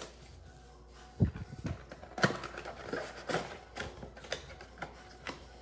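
Cardboard mega box and card packs being handled and opened: a string of light knocks and crinkly clicks, about two a second, starting about a second in.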